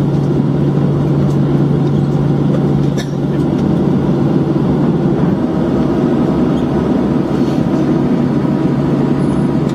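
Cabin noise inside a Boeing 737-700 rolling out on the runway after landing: a steady rumble of engines and wheels with a constant low hum. A brief click sounds about three seconds in.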